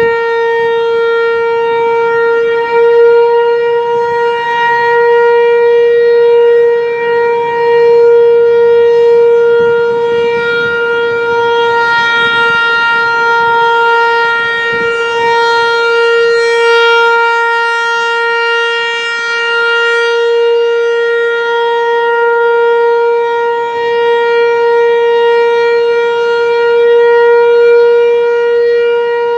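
Federal Signal Equinox outdoor warning siren sounding one steady tone that holds its pitch throughout, swelling and easing in loudness every few seconds.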